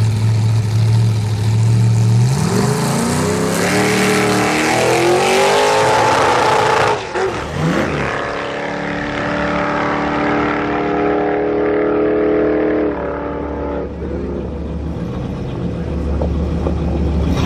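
A classic coupe drag car idling at the starting line, then launching about two seconds in. The engine's pitch climbs hard, drops at a gear change about seven seconds in, then holds as the car pulls away down the strip and the sound fades. Near the end an engine revs up again.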